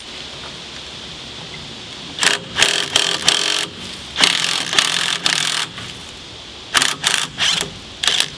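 Cordless impact wrench hammering in short bursts on a rusted wheel bolt of a 1956 VW single cab truck. There are about nine bursts in three groups, none longer than about a second and a half.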